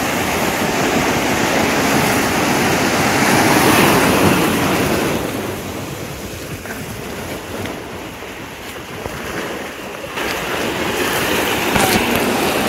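Sea surf breaking and washing over shore rocks, with wind on the microphone. The surf swells loud in the first few seconds, eases off in the middle, and builds again about ten seconds in.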